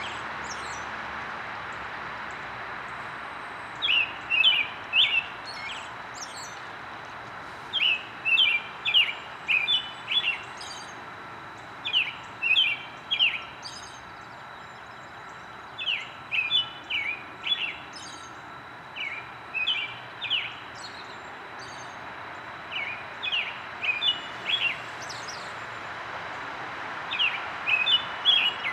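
American robin singing: short groups of three to five clear, pitched notes, a group every few seconds with pauses in between, over a steady background hiss.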